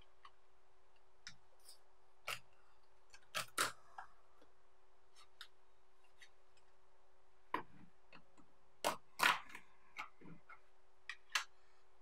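Scattered sharp clicks and taps at irregular intervals, several coming in quick pairs, over a faint steady hum.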